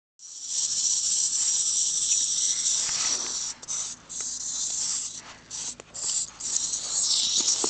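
A steady high hiss that starts abruptly and breaks off briefly several times in the second half.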